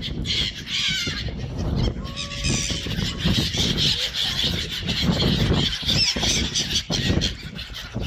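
Ducks and other waterbirds calling over one another, many overlapping calls, as they gather for food, over a low rumble.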